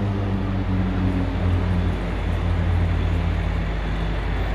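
Beech C-99 Airliner's twin Pratt & Whitney Canada PT6A turboprops in climb power, heard from below: a steady low propeller drone over an engine rush, its pitch stepping slightly lower as the aircraft moves away.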